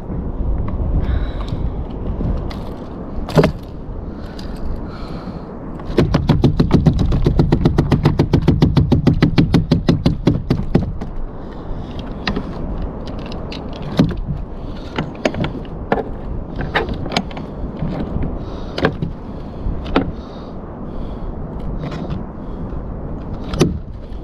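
Knocks and scrapes on a fishing kayak as a freshly landed fish is handled aboard. A few seconds in there is a rapid rattle of about nine knocks a second that lasts about five seconds and fades out. Steady wind and water noise sits underneath.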